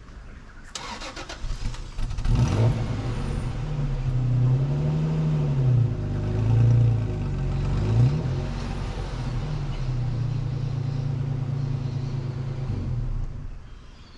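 A four-wheel-drive vehicle's engine is cranked and starts, then revs up and down several times as the vehicle strains on a tow rope with its wheels stuck in mud. The engine sound drops away near the end.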